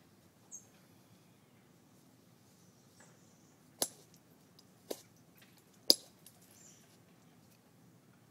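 Green sheen obsidian being knapped with a copper bopper: three sharp clicks about a second apart as flakes snap off the stone, the last the loudest, with a fainter tick just before them.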